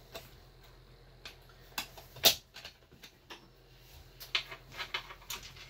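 Scattered light clicks and taps with one sharper knock a little over two seconds in: a router table's insert plate being set back into its opening in the table top.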